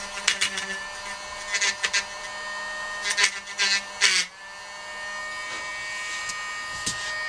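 Small handheld rotary tool running at a steady high whine, with several short bursts of grinding as its bit trims the ragged edge of a hole cut in flexible magnetic sheet.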